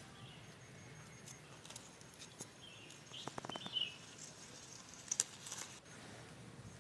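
Spinach leaves picked by hand, with a few light snaps and rustles clustered around the middle and again a little after five seconds, and birds chirping briefly near the middle.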